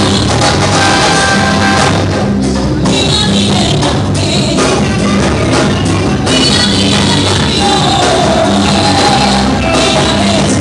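Loud gospel music with singing over a repeating bass line and drums.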